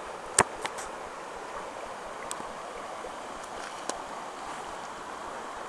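Shallow stream running over a stony bed in riffles, a steady rushing. A few sharp clicks stand out, the loudest about half a second in.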